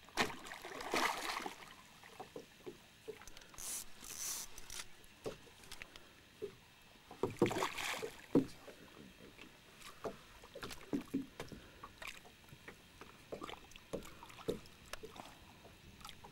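Water splashing and sloshing around a small fishing boat, with scattered knocks and clicks, and several longer splashes about one, four and eight seconds in.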